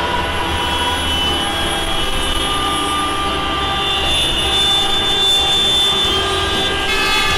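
Steady vehicle engine sound effect, a continuous drone with several held tones over a low rumble.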